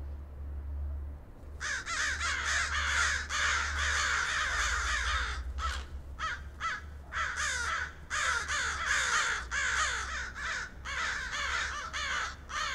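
Crows cawing: many calls overlapping in a dense chorus that starts about a second and a half in and goes on in bursts with brief gaps, over a low steady hum.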